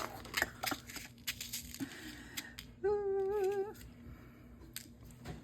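A man burping once, about three seconds in: a sustained belch just under a second long with a wavering pitch, among small clicks from craft handling.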